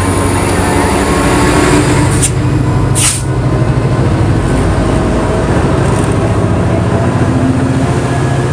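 Coaster F40PHM2-C diesel-electric locomotive with its EMD 16-cylinder 645 two-stroke diesel running with a low, steady hum as it moves past, followed by the rumble of bilevel passenger cars on the rails. Two short hisses, about a second apart, come a couple of seconds in.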